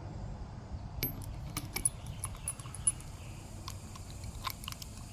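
Light metallic clicks and clinks of chrome steel lug nuts being handled, as a new lug nut is set into a 21 mm impact socket. It is a scatter of small taps, some with a brief high ring, starting about a second in.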